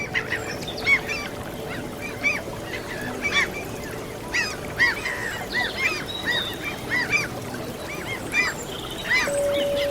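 A flock of gulls calling over and over in short, arching cries, over a steady wash of sea waves. Near the end a held flute note comes in.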